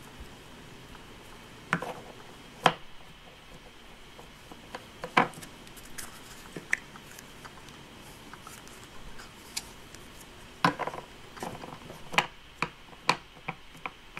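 Scattered sharp clicks and taps of plastic as hands press Play-Doh into a clear plastic mould and handle Play-Doh tubs on a tabletop. The taps come singly at first and more often near the end.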